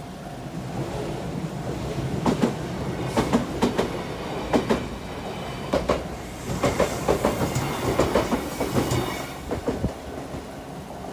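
A Shizuoka Railway Shizuoka–Shimizu Line electric train passing over the level crossing. Its wheels clack over the rail joints in paired beats for several seconds, with a hiss in the middle of the passage.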